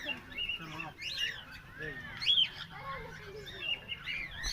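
Birds calling: many short, arching chirps and whistles, overlapping one another.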